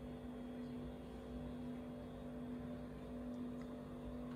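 A steady low hum with a faint rumble underneath, unchanging throughout.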